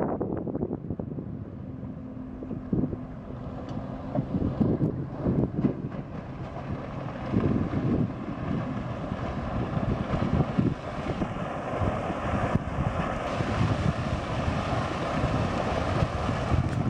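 Chaparral 220 Sunesta deck boat running at speed, its engine and the hull's hiss through the water growing louder in the second half as it comes closer, with gusts of wind buffeting the microphone.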